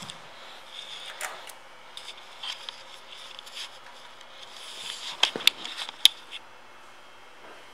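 Scattered sharp clicks and light knocks from handling around a parked motorcycle, the loudest a quick cluster about five to six seconds in; the engine is not running.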